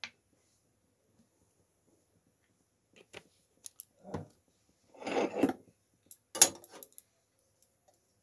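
A metal ladle and steel cookware clinking and scraping: a scattering of separate knocks and clanks, with a short scrape a little past halfway and the sharpest clank soon after.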